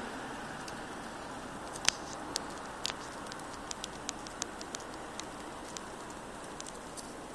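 Steady low outdoor hiss during a heavy wet snowfall, with light irregular ticks pattering a few times a second, the sharpest one about two seconds in.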